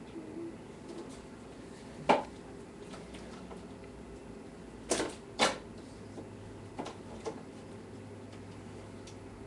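Sharp knocks and clicks from handling at a refrigerator as a plush toy is put inside: one loud knock about two seconds in, a loud pair near the middle and two fainter clicks after. A low steady hum comes in near the middle.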